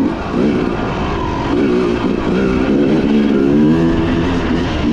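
Dirt bike engine running as it is ridden, its pitch wavering and climbing with the throttle.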